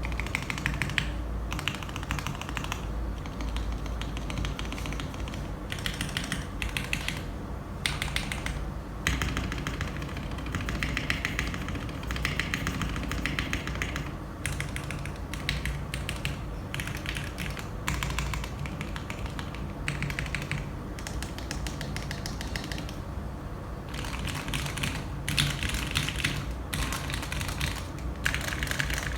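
Typing on a Womier K66 mechanical keyboard fitted with lubed C3 Macho Banana Split linear switches and PBT keycaps, in runs of rapid keystrokes broken by short pauses. It is recorded on a phone, with a steady low hum beneath the clicks.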